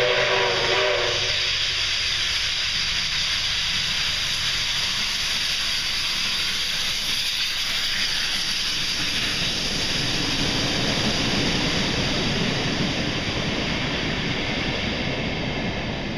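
NSWGR 59 class 2-8-2 steam locomotive 5917: its whistle cuts off about a second in, then it passes close with a steady loud hiss of steam and exhaust. From about halfway its carriages roll by with a deeper rolling noise of wheels on rail.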